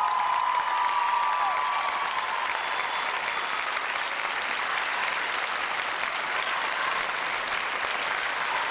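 Large arena audience applauding steadily after a skating routine, with a few held high calls from the crowd over the clapping in the first couple of seconds.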